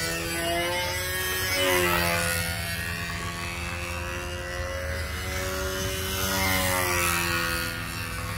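Control-line stunt model's PA .65 two-stroke glow engine running steadily in flight, a propeller-driven buzz. Its pitch rises and falls with each lap as the plane comes toward and goes away from the listener, dropping about two seconds in and again near seven seconds.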